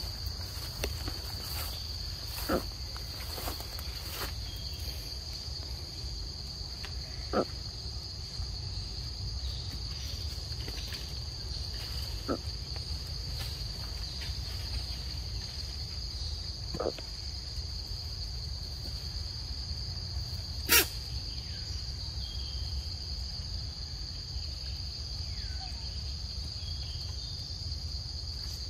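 Steady, high-pitched drone of an insect chorus, with a few sharp clicks or snaps scattered through it, the loudest about two-thirds of the way in.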